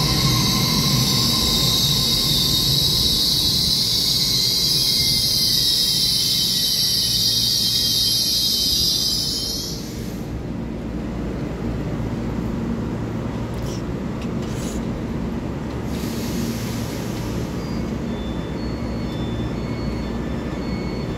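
Taiwan Railway EMU3000 electric multiple unit pulling in and braking, with a loud high squeal over the running rumble that cuts off as the train stops about ten seconds in. Then the standing train gives a steady hum, with a few short hisses.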